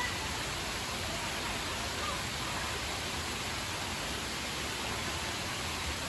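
Shallow stream water running over a flooded forest path, a steady even rushing noise.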